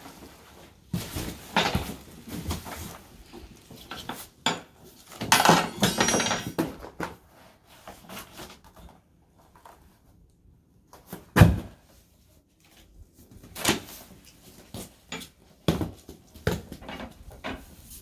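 Unpacking an adjustable bed base: plastic wrapping crinkling, cardboard rustling and scraping, and knocks and clatters as the upholstered base panel and packaging are handled. A heavy thump about eleven seconds in is the loudest sound, with a few lighter knocks after it.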